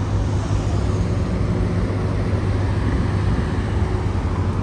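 Car engines idling: a steady low drone with an even wash of noise behind it.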